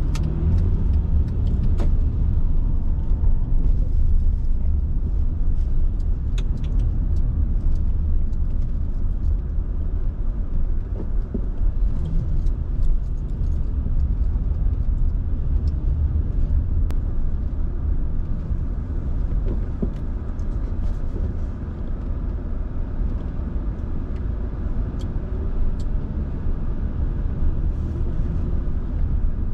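Steady low rumble of a car driving slowly, heard from inside the cabin, with faint clicks and rattles scattered through.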